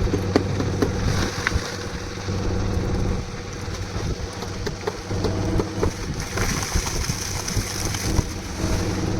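Concrete mixer running at a construction site: a steady engine drone with scattered knocks and rattles, its note changing about three seconds in.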